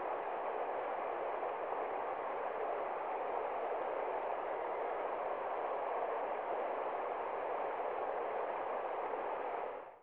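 Shallow mountain river rushing over rocks in rapids: a steady, even rush of water that fades out right at the end.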